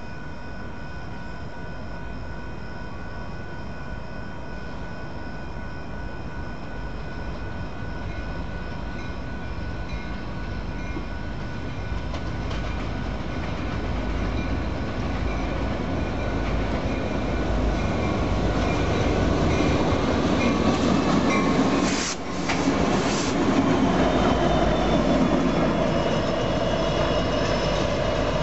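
Three Union Pacific diesel locomotives running light, with no cars behind them, approach and pass. Their engine rumble and wheel noise grow steadily louder through the first two-thirds, then hold at a loud, steady pass-by near the end.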